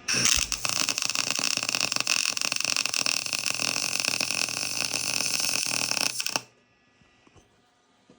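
Harbor Freight Chicago Electric 170-amp MIG welder arc crackling and sizzling steadily as a weld bead is laid. It cuts off suddenly about six seconds in when the trigger is released.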